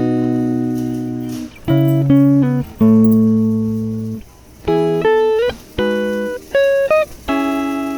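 Background music: a guitar playing slow plucked chords and single notes that ring and fade, several of them sliding up in pitch.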